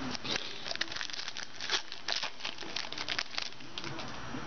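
Crinkling and crackling of a trading card pack and cards being handled, a quick run of rustles that thins out near the end.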